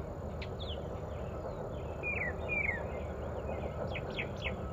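Lovebirds chirping: scattered short, high, falling chirps, with a quick cluster of chirps near the end, over a steady low background noise.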